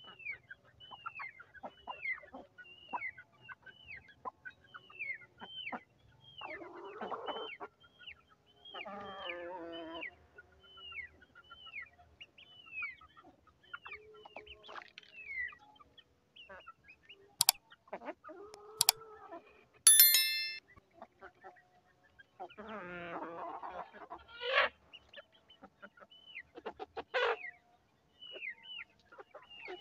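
Chicks peeping over and over with short falling calls, about two a second, among the clucking calls of adult chickens. About two-thirds of the way through come two sharp clicks and a brief ringing clink.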